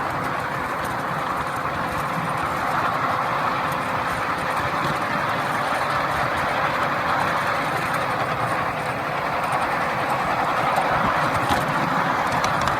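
Miniature railway train running along ground-level track: a steady rumble of wheels on the rails, with a faint steady hum.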